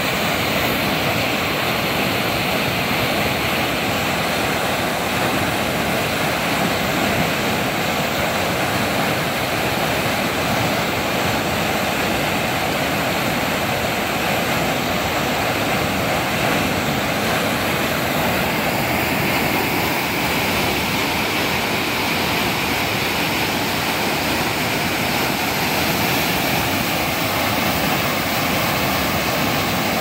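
Canal water pouring over a low drop in a brick-lined channel and churning into white water: a steady, unbroken rushing.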